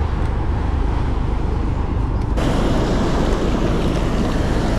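Ocean surf washing on the beach with wind rumbling on the microphone, a loud steady noise. About halfway through, the hiss suddenly gets fuller and brighter.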